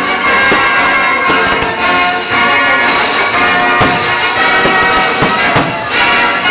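Loud orchestral music with brass, with a few sharp thumps through it in the second half.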